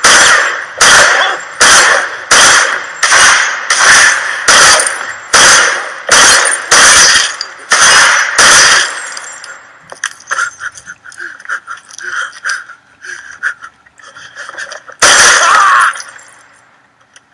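About a dozen pistol shots fired one after another, a little under a second apart, into a car through its glass. They are followed by several seconds of crackling and tinkling of breaking glass, then one loud burst about a second long near the end.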